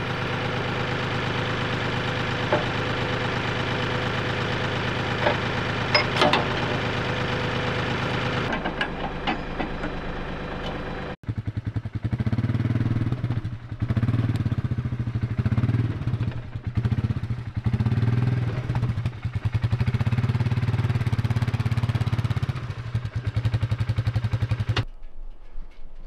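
A compact tractor's engine idling steadily, with a few metal clinks about six seconds in. After a sudden cut comes an ATV engine running as it drives along a dirt track, its pitch and level rising and falling with the throttle.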